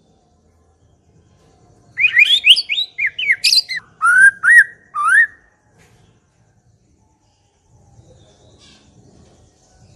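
White-rumped shama (murai batu) singing one burst of quick, clear notes that glide up and down, lasting about three and a half seconds and starting about two seconds in.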